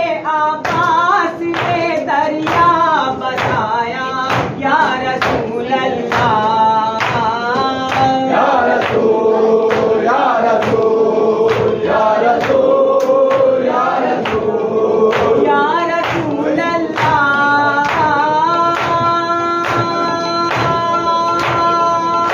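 Men's voices chanting a noha, a Shia lament, with the sharp strikes of matam, palms beating on chests, keeping a steady beat of about one and a half strikes a second. Near the end the chanting settles on a long held note.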